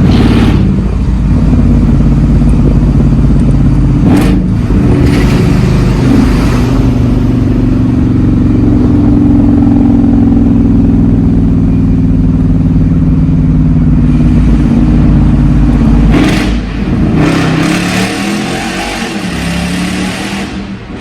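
Mercedes-Benz E55 AMG's supercharged 5.4-litre V8 (M113K) under way, running with a steady low drone. There is a brief break about four seconds in. Near the end it drops and the note rises again as the car accelerates.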